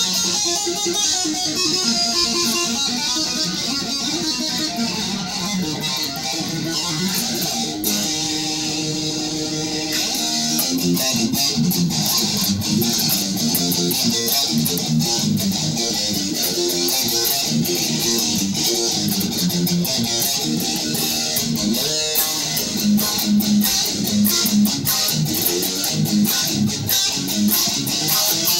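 Guitar jam with no singing: a run of picked and strummed notes, one note held for about two seconds near the end of the first third.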